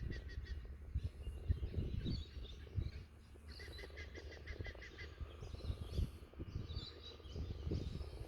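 Small birds chirping and trilling, with a quick run of repeated chirps, about five a second, a few seconds in. A low gusting rumble of wind on the microphone runs underneath.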